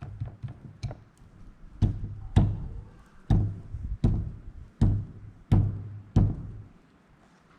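Hard knocks on a Caterpillar 3412 engine's main bearing cap, tapping it down into place: a few light taps, then about seven heavy strikes roughly one every 0.7 s, each leaving a short low ring.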